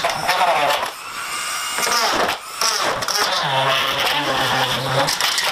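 Cordless drill running as it drives screws fixing an aero splitter to a car's front lip.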